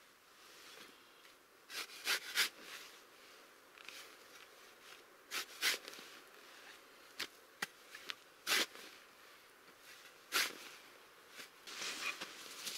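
A spade digging into a dry earth floor: about eight sharp scraping strikes at irregular intervals. Near the end, a softer rustling of a wool blanket and bag being handled.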